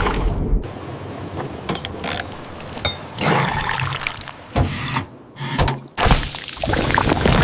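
Liquid pouring and splashing in several separate rushes, with small clicks and knocks between them.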